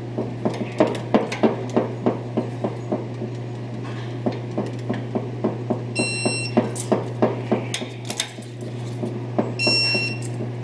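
Electronic torque wrench ratcheting on ring gear bolts in quick clicks, about three or four a second. It beeps briefly twice, about six seconds in and again near the end, signalling that the set torque is reached. A steady low hum runs underneath.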